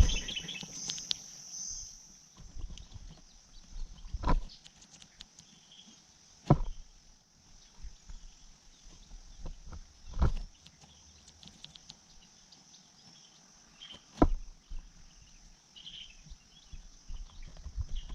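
A steady high-pitched insect drone with a few faint chirps, broken by five sharp thumps spaced a few seconds apart.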